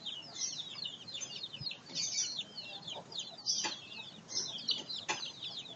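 A flock of young chickens peeping: many short, high chirps, each falling in pitch, overlapping without a break.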